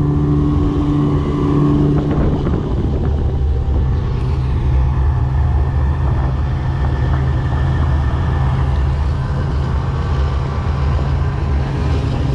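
Snowmobile engine running steadily under way, heard from the passenger seat; its higher note eases off about two seconds in and it settles to an even drone.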